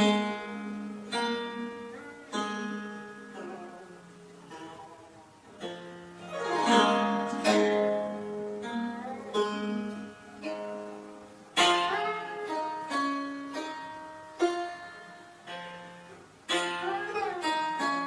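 Solo Chaozhou zheng (Chaozhou-style guzheng) being played: plucked notes ringing over a held low note, with two sweeping glissandi across the strings about a third and two-thirds of the way through, and notes bent up and down in pitch.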